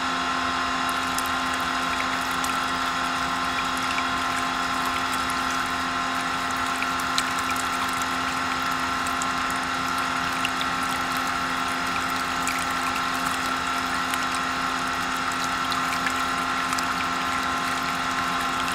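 A small electric motor running steadily at one constant pitch, with an even hum and faint scattered clicks.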